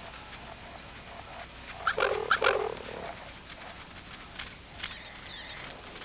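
Loud animal cry lasting about a second, starting about two seconds in, from a struggle between young cheetahs and a Grant's gazelle they are trying to pull down. A few short scuffling knocks and a fainter cry follow.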